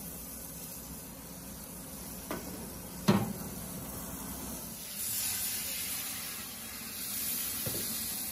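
Diced onion, garlic and butter sizzling in the hot, rotating drum of an auto wok, the hiss growing louder from about five seconds in as steam rises. Two sharp knocks come a couple of seconds in, the second and louder about three seconds in.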